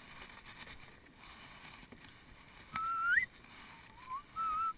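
Faint water noise from a kayak being paddled. About three seconds in there is a clear whistle that glides upward, and about a second later a shorter whistle that rises and then holds.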